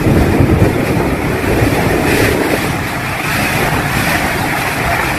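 Typhoon-force wind with heavy rain: a loud, steady rush of noise.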